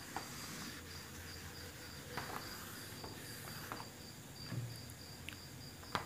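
Faint, steady chirping of a cricket: a thin, high pulsing trill that runs on without a break. It is joined by a few soft ticks and scrapes of a marker against a whiteboard.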